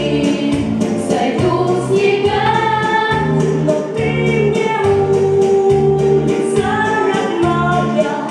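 Boys singing into microphones over an amplified backing track with a steady beat and a bass line.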